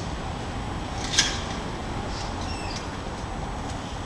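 Steady low rumble of distant traffic, with one sharp high click about a second in and a few faint high squeaks after it.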